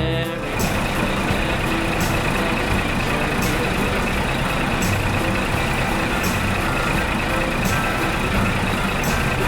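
A truck engine running steadily: a dense, even noise with a rough low end and a faint high whine.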